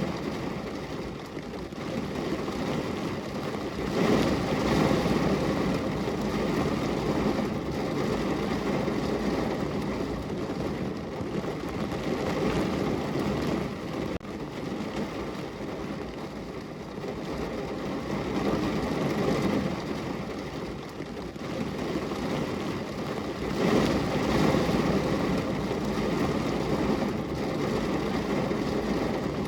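Steady rain falling on a car's windows and roof, heard from inside the car, swelling heavier about four seconds in and again near the end.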